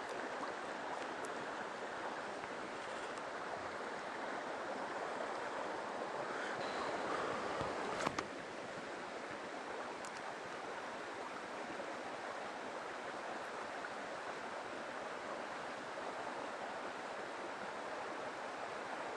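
Mountain stream water rushing steadily, with one sharp knock about eight seconds in.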